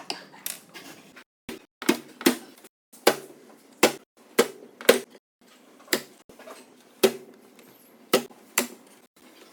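Pieces of wood being knocked and tapped with hand tools: about a dozen sharp, irregular knocks, the loudest around two and five seconds in, with short silent gaps between.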